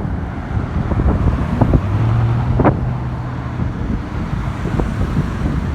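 Wind buffeting the microphone over road traffic, with a vehicle engine humming steadily for about two seconds around the middle and a few short knocks.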